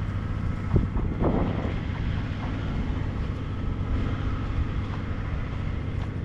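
A steady low motor hum under wind noise, with a single short knock just under a second in.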